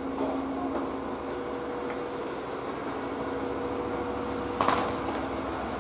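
Steady low hum of diesel railcars idling at the platform, with a brief clatter about three-quarters of the way through.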